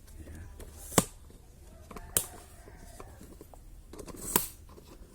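Handling noises: three sharp clicks or taps, about one, two and four seconds in, the last one after a short brushing sound, over a low steady hum.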